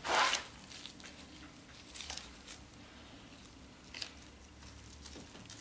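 Gloved hands handling and pressing chopped strand fiberglass mat onto a resin-wetted surface: a brief swish at the start, then faint crackling and rustling.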